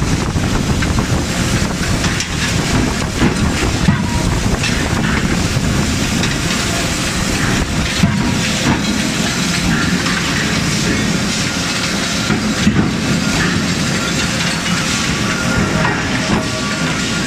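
Forging-shop noise around an Anyang C92K-31.5KJ CNC hydraulic die forging hammer: a steady, loud machinery hiss and low rumble, with a few sharp knocks.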